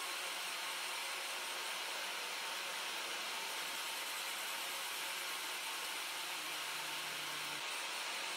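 A steady, even hiss of background noise, with a faint low hum that stops near the end.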